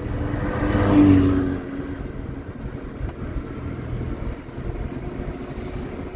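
Motor vehicle noise swelling to a peak about a second in and then dying away, followed by a steady low engine rumble.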